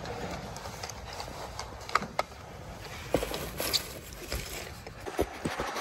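Hen's eggs being picked up by hand from a nest of straw and dry leaves: soft rustling with a handful of separate light clicks and knocks.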